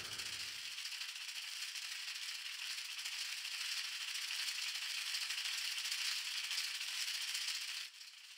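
A steady, high rattling hiss: the sound effect for an animated boy speeding along on a longboard. It drops away sharply near the end.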